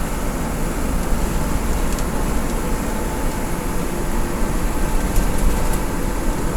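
Intercity bus on the move, heard from inside the cabin: steady engine and road noise with no change in pace.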